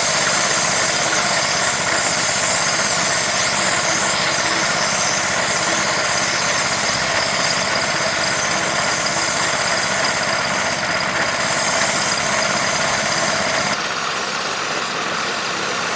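An engine or motor running steadily, a dense even mechanical noise that drops slightly in level about fourteen seconds in.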